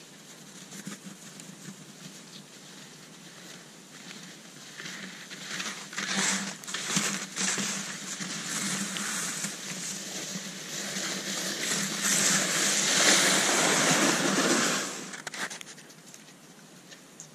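Cross-country skis and the ski runners of a towed child carrier sliding over snow close by. It is a hissing noise with a few knocks, growing louder to a peak and dropping away abruptly near the end.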